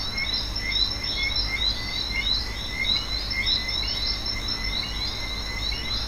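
Outdoor chorus of many short, high chirps from small wild animals, overlapping irregularly several times a second over a steady high drone, with a low rumble underneath.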